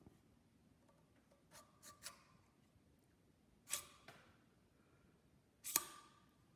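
Bronze sleeve bearing being slid by hand along a South Bend 13-inch lathe spindle: a few soft metal scrapes, then two sharper metallic clinks with a brief ring, about two seconds apart.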